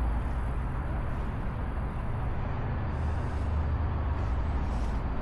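Steady low outdoor rumble with no distinct events, of the kind heard from road traffic or wind on the microphone.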